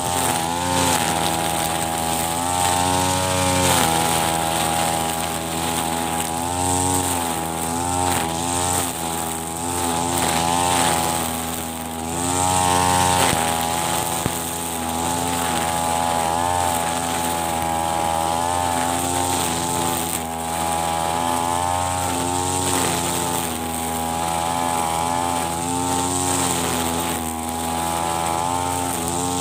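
Petrol brush cutter (string trimmer) engine running at high revs while cutting grass with its nylon line, its pitch rising and falling every second or two as the throttle is worked and the head swings through the grass.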